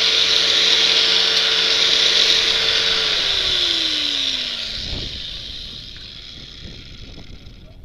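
Chicago Electric angle grinder with a cut-off wheel cutting through a steel bicycle frame tube: a loud, steady hiss over the motor's whine. About three seconds in the grinder is switched off and its whine falls in pitch as the wheel spins down, with a low thump around five seconds in.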